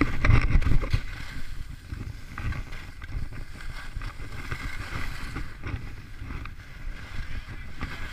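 Skis sliding and scraping over packed snow through turns, with a low rumble of wind on the microphone. Loudest in the first second.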